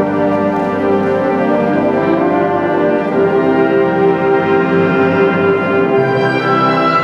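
Concert wind band playing slow, sustained chords with the brass to the fore, the harmony shifting about six seconds in.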